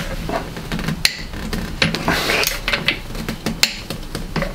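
Irregular metallic clinks and clicks of a ratchet wrench and hardware as nuts are run down to fasten a leveling spacer to the top of a truck's front coil-over strut, with a brief scraping rattle about two seconds in.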